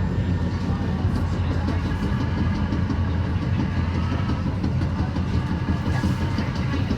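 Metra commuter train running at speed, heard from inside the passenger car: a steady low rumble of wheels on rail with faint scattered clicks.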